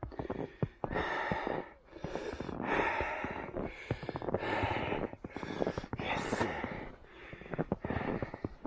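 A runner's heavy breathing: about eight hard breaths, less than a second apart, over a quick patter of footsteps crunching in snow.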